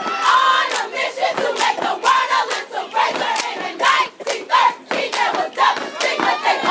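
A line of women stepping: sharp stomps on concrete and hand claps in an uneven rhythm, under loud unison chanting and shouting from the line and the crowd.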